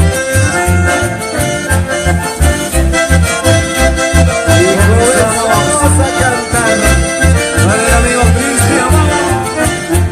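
Live chamamé band playing an instrumental passage led by accordion, over a steady bass beat, with melodic runs gliding up and down in the middle.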